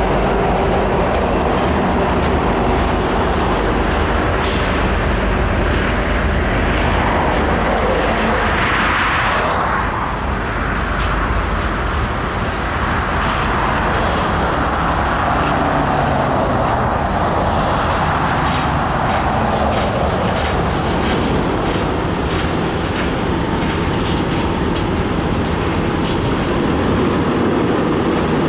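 Covered hopper cars of a freight train rolling past close by: a steady rumble of steel wheels on rail, with scattered clicks and clanks from the wheels and cars.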